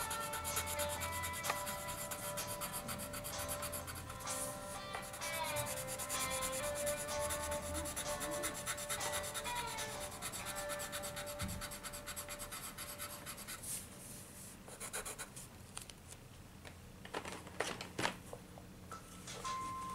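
Colored pencil scribbling rapidly back and forth on paper as an area is shaded in, with faint background music. The scribbling thins out in the second half, and a few sharp knocks or clicks come near the end.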